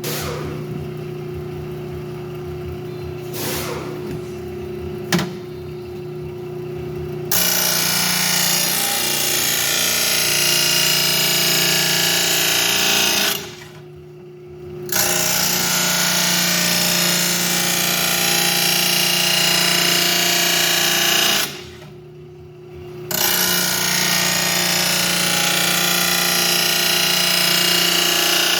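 Oregon blade sharpener's motor running steadily, then about seven seconds in a steel mower blade is held against the spinning grinding wheel in three long, loud grinding passes with two short breaks between them. The passes take metal off the blade to bring it into balance.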